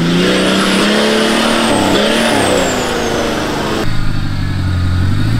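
A 4WD engine revving up and down under load, with tyre and road noise, as it drives a dirt bush track. About four seconds in, a cut to a Suzuki Jimny's engine running steadily at low revs as it crawls through a deep rut.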